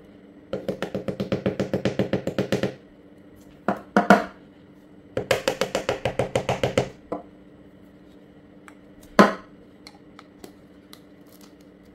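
Two runs of rapid, even tapping, about nine taps a second for two seconds each, with single sharp knocks between them, as the parts of a stick vacuum cleaner are handled and worked loose.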